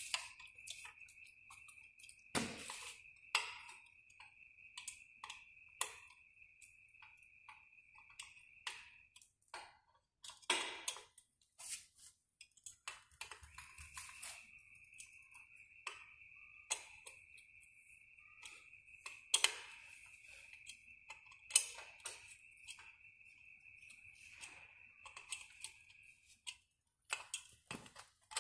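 Scattered light clicks and small snaps of hand pliers working at the wiring and plastic cable ties on a carbon-fibre drone arm joint. A few clicks are louder than the rest. A steady high-pitched tone runs behind them for long stretches, stopping for a few seconds near the middle.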